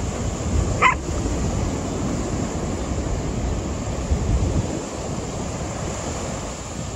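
A dog gives a single short, high yip about a second in, over steady wind buffeting the microphone and breaking surf.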